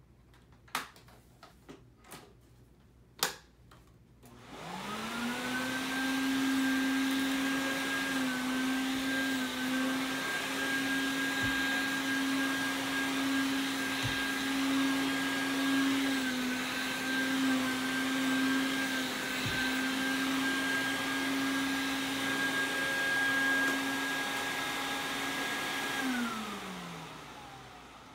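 Quantum X upright water-filtration vacuum cleaner: a few clicks, then the motor spins up with a rising whine about four seconds in. It runs steadily with slight dips in pitch, then winds down with a falling whine near the end.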